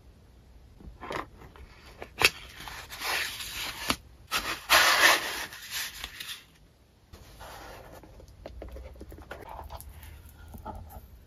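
Paper and cardboard handled close to the microphone: rustling and scraping, with a sharp tap about two seconds in and the loudest scraping around five seconds in, then softer rustling after a brief pause.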